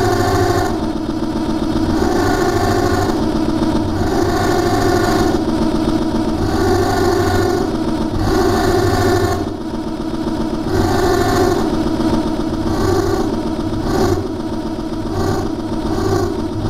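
Button accordion reeds sounding a dense, buzzing sustained drone through live electronics, with chord clusters swelling and fading in repeated waves every second or two over a steady low hum.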